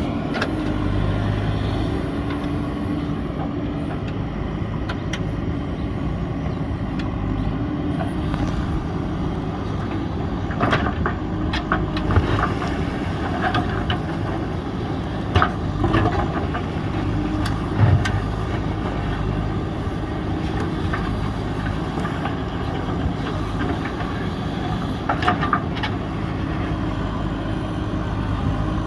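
JCB 3DX backhoe loader's diesel engine running steadily while digging, with a few sharp knocks from the digging work several times in the middle and again near the end.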